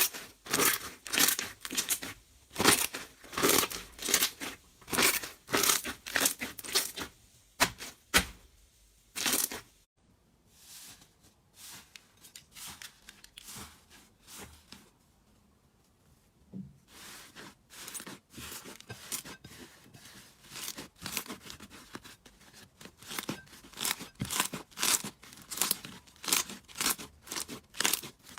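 Slime worked by hand, squeezed, poked and pulled apart, giving a fast, irregular run of short sharp pops and tearing sounds several a second. The pops turn softer and sparser for several seconds in the middle, then pick up again.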